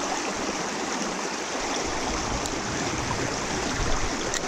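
Shallow rocky creek rushing steadily over riffles, with two faint clicks, one midway and one near the end.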